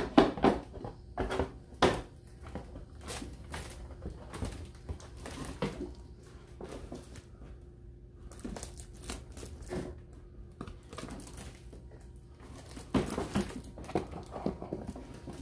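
Cardboard box and packaging being handled: irregular rustles, scrapes and knocks, loudest about the first two seconds and again near the end.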